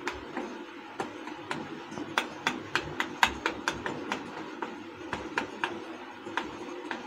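Fork pricking rolled dough stretched over an upside-down steel bowl. Each jab gives a sharp click as the metal tines strike the bowl beneath, in an irregular run of about two or three a second, over a steady low hum.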